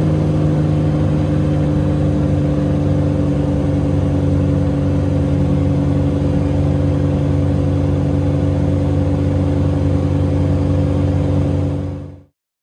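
Small propeller plane's engine and propeller droning steadily in flight, heard inside the cabin, with a low steady hum under a noisy rush. The drone fades out quickly near the end.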